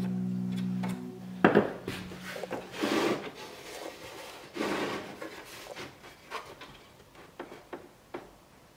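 Background music ends about a second in. Then wood scrapes against wood, with three louder rough scrapes about a second and a half apart followed by light taps, as a thin wooden lamination strip is fitted against a model boat hull's plywood frames.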